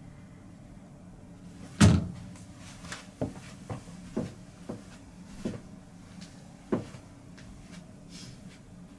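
A sharp knock about two seconds in, followed by a run of lighter, irregularly spaced knocks and clatters.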